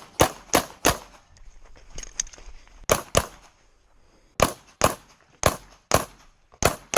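Glock 34 9mm competition pistol firing about a dozen fast shots in quick pairs and strings, with two short breaks between strings.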